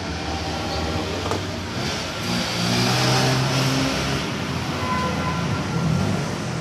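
Loud music playing through an aftermarket car sound system with a speaker box, its pitched notes shifting and growing louder a couple of seconds in, distorted and muddy as recorded.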